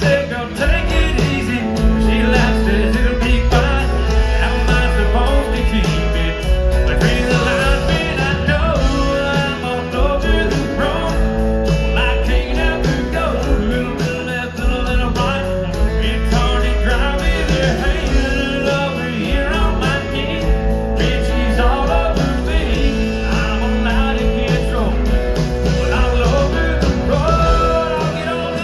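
Live country band playing at full volume with the fiddle taking the lead, over electric guitar, bass and drums.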